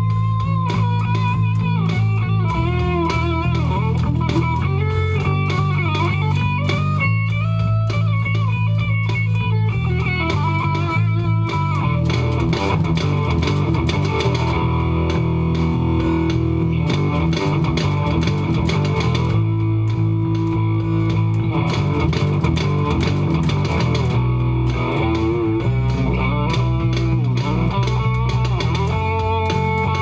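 Electric bass and a Telecaster-style electric guitar jamming a hard-rock piece together. Steady low bass notes run under melodic guitar lines with bent notes.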